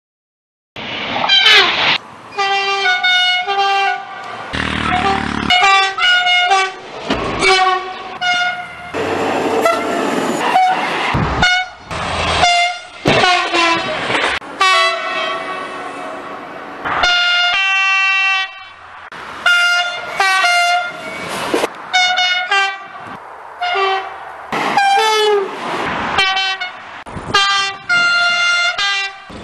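A rapid string of French train horns. The trains give short, steady, pitched blasts, one after another, at several different pitches, with the noise of passing trains between them. It starts about a second in.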